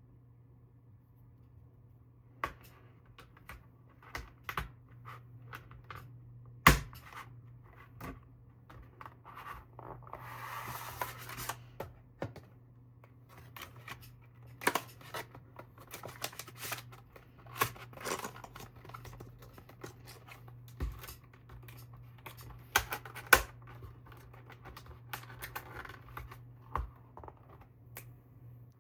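Hands handling packaging: scattered sharp clicks and taps of plastic and cardboard, with a stretch of rustling about ten seconds in.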